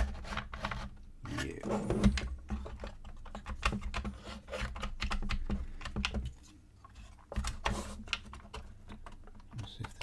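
Wooden puzzle box worked by hand: an irregular run of small wooden clicks and knocks as its notched letter sliders are pushed from position to position, with a sharp click right at the start.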